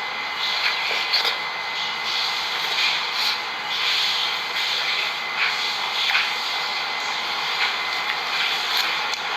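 Steady hissing background noise with a few short clicks and smacks scattered through it, from someone eating melon.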